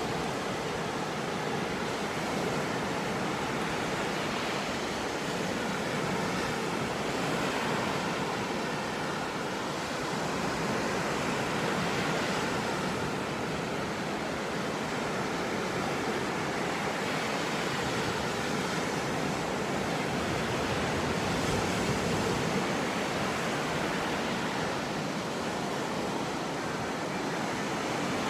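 Sea surf washing onto a beach: a steady rush of breaking waves that swells and eases gently every few seconds.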